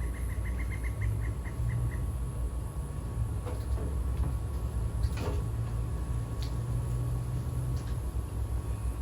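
A few scattered light knocks and clicks over a steady low rumble, with a short run of quick high chirps, about four a second, in the first two seconds.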